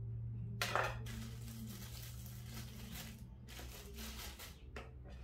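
Clear plastic bag of strawberries crinkling and rustling as it is handled, on and off for a few seconds.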